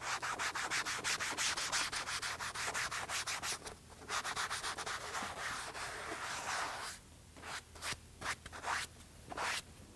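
Yellow foam applicator pad scrubbing dead bug splatter off a truck's black plastic mirror housing in fast back-and-forth strokes, with a short pause about four seconds in and a few slower, separate strokes near the end.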